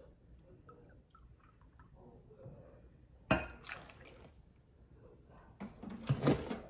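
Milk poured from a plastic gallon jug into a measuring cup, then tipped from the cup into a bowl of dry cake mix. A sharp knock about three seconds in and a louder clatter near the end as the utensils are handled.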